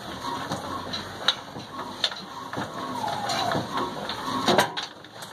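Irregular metallic knocks and clunks from an old Ruston Hornsby-type single-cylinder diesel engine with a heavy flywheel, as two men work at it.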